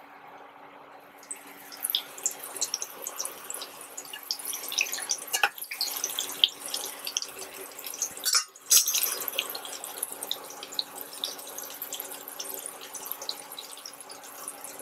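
Rice-flour-coated chicken pieces deep-frying in hot oil in a steel kadai: a dense crackling sizzle that starts about a second in, as the pieces go into the oil, and breaks off briefly about eight seconds in.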